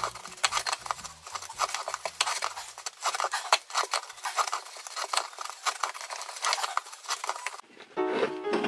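Close rustling and rapid small clicks of hands pulling and tightening 1 mm waxed cord while tying macrame knots. Plucked string music comes in near the end.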